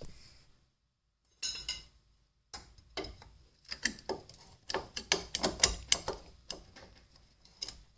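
A steel rock slider being worked into a Jeep TJ's frame: a short scrape, then a quick run of sharp metal clicks and knocks.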